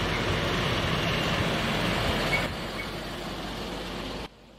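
Heavy MAN truck driving past close by, a steady engine and tyre noise that drops a little about two and a half seconds in and cuts off abruptly just before the end.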